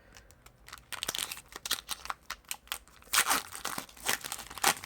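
Foil wrapper of a Pokémon booster pack crinkling and tearing as it is opened: a run of small crackles, with two louder rustling tears, one after about three seconds and one near the end.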